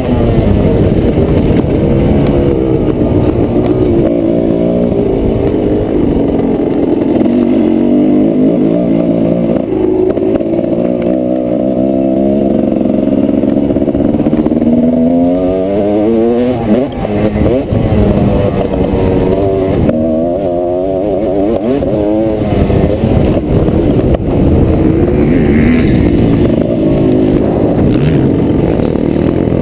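1997 TM Racing 250 Cross's single-cylinder two-stroke engine, heard from on board, revving up and down again and again as it is ridden around a motocross track. The throttle is shut briefly about halfway through.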